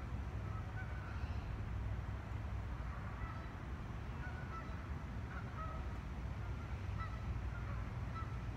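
Geese honking on and off, with short faint calls scattered through, over a steady low rumble.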